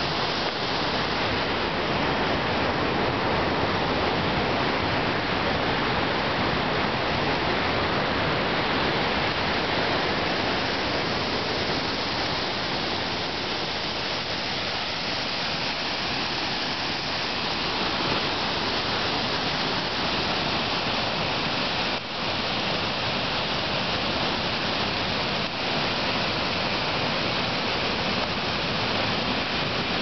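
Water of a small waterfall rushing steadily, a constant even hiss, with a couple of brief dips late on.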